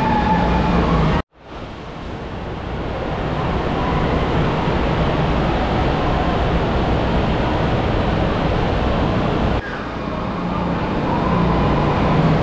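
Steady echoing din of an indoor water park hall: rushing water from the slides and pools with faint distant voices. It cuts out for an instant about a second in, then swells back.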